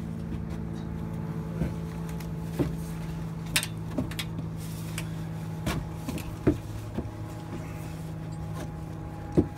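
A steady engine hum runs under a string of sharp knocks and clunks as the rescuers' gear and tools bump the wooden floor prop. The loudest knock comes near the end.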